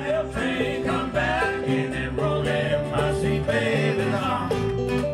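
Music: a song with plucked string instruments and a singing voice.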